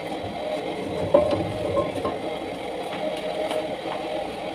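Steady hum of kitchen equipment running, with a sharp metal clank about a second in as the steel wok is turned on the gas stove's grate.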